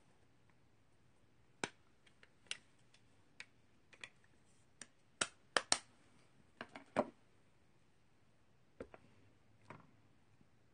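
Scattered light clicks and taps of small plastic craft supplies being handled on a tabletop, about a dozen at uneven spacing, the loudest few bunched together in the middle.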